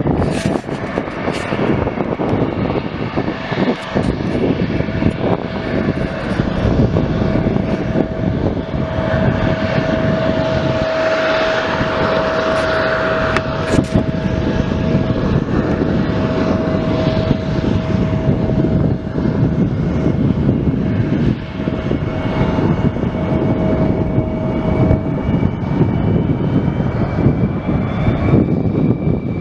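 Airplane engines running loud and continuous, with a deep rumble and a steady whine; a higher tone drifts slightly upward near the end.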